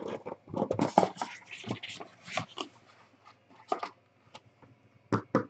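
Cardboard trading-card box being handled and slid: a run of scraping and rubbing, then a few sharp separate clicks near the end.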